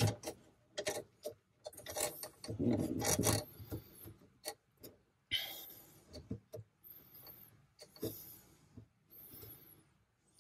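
Small metal parts clicking, tapping and scraping as a replacement pivot pin is fitted into a manual transmission's shifter body: a quick run of sharp clicks and knocks in the first few seconds, then scattered rubbing and scraping.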